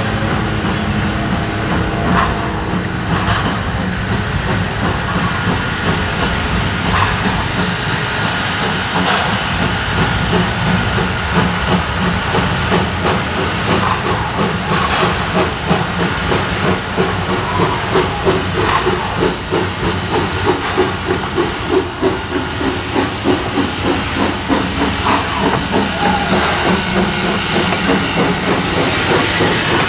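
Clover Valley Lumber Co. 2-6-6-2T Mallet tank steam locomotive No. 4 working a freight train past at close range. Steam hisses from around its cylinders, and the exhaust chuffs in a rhythm of about two beats a second that becomes distinct midway through.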